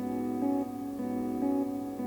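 Guitar fed through a Wampler Ethereal delay and reverb pedal with every knob at ten: the delay repeats pile up into a sustained, layered drone that pulses about twice a second. The player hears the repeats start to distort and puts it down to the delay being repeated dozens of times.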